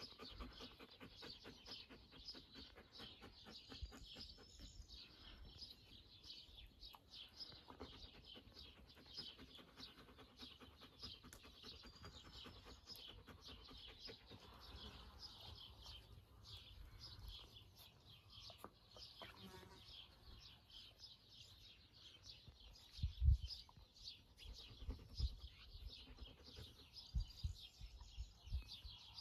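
Small birds chirping quickly and continuously, faint and high-pitched, with a few low thumps in the second half.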